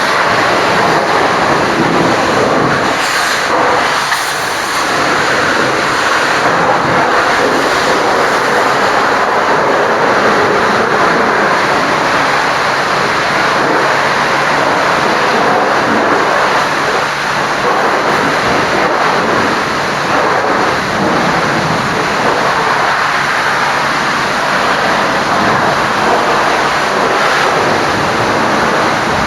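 High-pressure washer jet spraying water steadily against a truck's bodywork, a continuous loud hiss.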